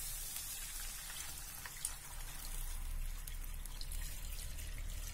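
Thin coconut milk poured from a jug into a hot pan of sautéed shallots and green chillies, a steady pour with the liquid sizzling and crackling as it hits the pan.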